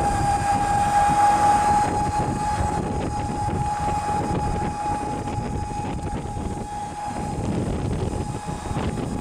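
Riding in a moving vehicle: low, rumbling road and wind noise with a steady high-pitched whine that slowly fades and drops away about nine seconds in.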